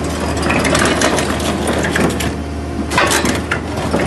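Tescar CF2.5 hydraulic mini piling rig drilling into concrete: a steady low engine hum under irregular clattering, cracking and grinding from the drill tool breaking up the concrete.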